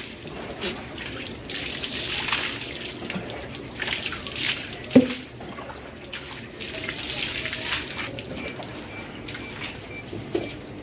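Water from a garden hose splashing over a goat being bathed and onto a concrete floor, coming in uneven gushes. One short cry rings out about halfway through.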